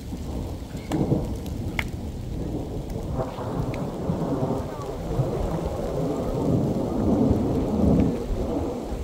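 A long rolling rumble of thunder during a heavy spring rainstorm, swelling from about three seconds in and loudest near the end.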